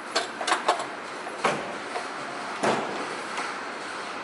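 Scattered metallic clicks and knocks of hands and tools working on metal parts in a car's engine bay, while the new A/C receiver drier and its line fittings are being put on. The clicks come unevenly, several in the first second and single louder knocks about one and a half and two and a half seconds in, over a steady background hiss.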